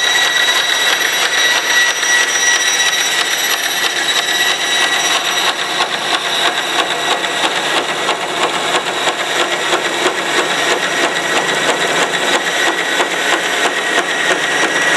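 Forrest Model 236 vertical bandsaw cutting at an angle through HDPE double-wall corrugated drainage pipe: a steady high whine from the running saw over a continuous rasping cut. The cutting noise keeps changing as the blade passes alternately through a lot of plastic and very little in the corrugations.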